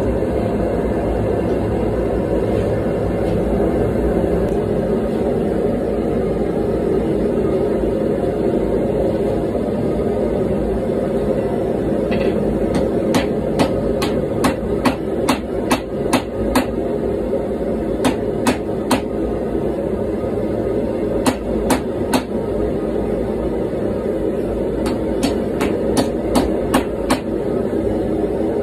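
Gas forge burner running with a steady rushing noise throughout. From about halfway in, a hand hammer strikes a red-hot steel billet on the anvil in several runs of quick blows, each strike sharp and ringing.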